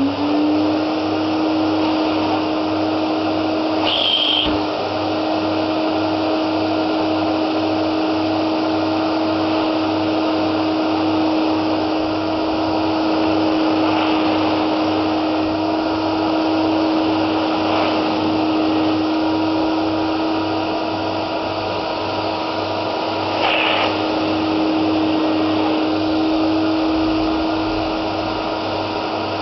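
Hoover Aquamaster S4396 wet-and-dry carpet washer's 1050 W motor running steadily, its pitch settling in the first half second after switch-on. Two short higher rushing surges come through, one about four seconds in and one near the end.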